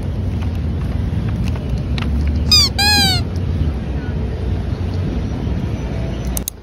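Street noise with a steady low traffic rumble; about two and a half seconds in, two short high cries bend up and down in pitch. The sound drops off suddenly near the end.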